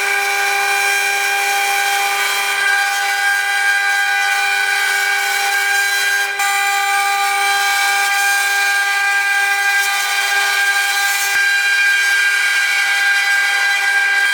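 CNC milling machine spindle running and cutting: a steady high whine over the noise of the cut, shifting slightly a few times.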